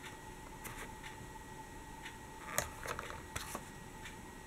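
Faint clicks and light handling noises of a hand picking up and holding a paper model tram over a tabletop. A few scattered small taps come in the second half, over quiet room tone.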